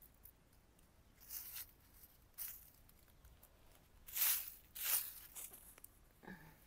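Dry grass rustling and tearing in four short bursts, the loudest two about four and five seconds in.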